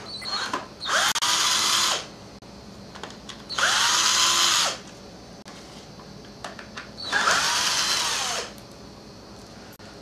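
Cordless drill driver with a Torx bit running in three short bursts, its motor whine rising at the start of each and falling away at the end, as it backs out the screws holding a string trimmer's front housing. Light handling clicks between the bursts.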